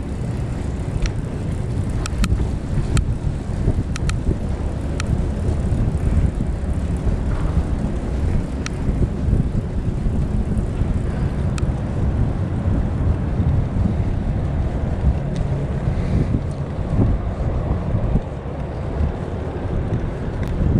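Wind buffeting the microphone of a chest-mounted camera on a moving bicycle: a steady low rumble, with a few scattered light clicks in the first dozen seconds.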